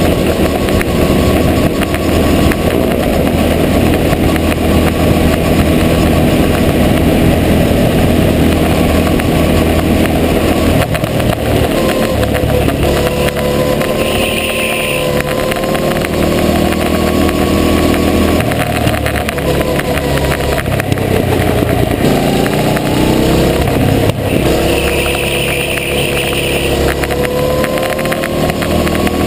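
Go-kart engine heard from on board, running hard around a track, its pitch rising on the straights and falling away several times as the driver lifts for corners. A short high squeal comes twice, once midway and once near the end.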